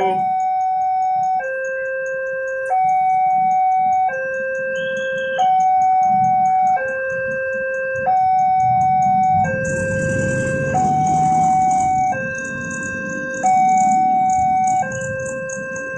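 Railroad crossing warning alarm sounding: an electronic two-tone signal that swaps between a higher and a lower chord about every second and a half, warning that a train is approaching. From about halfway in, a low rumble and hiss join beneath it.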